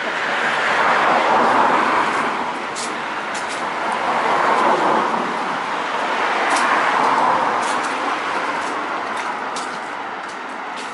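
Road traffic: cars passing one after another, the tyre and engine noise swelling and fading about three times.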